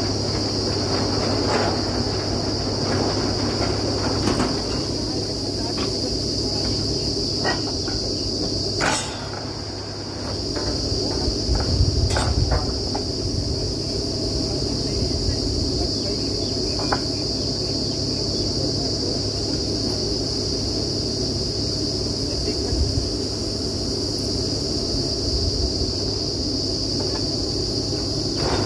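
Truck-mounted borewell drilling rig running steadily with a low droning hum and a steady high-pitched buzz over it. Scattered sharp metal clanks come through, likely from steel drill pipes being handled. The running dips briefly about nine seconds in and grows louder a few seconds later.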